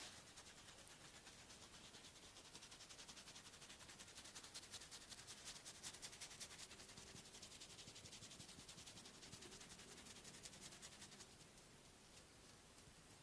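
Faint, fast, even pattering of a masseur's hands working on bare skin in a back massage, tailing off about eleven seconds in.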